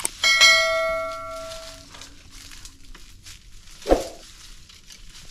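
A metal object struck once, ringing with a bell-like tone that fades away over about a second and a half. A dull knock follows near the end.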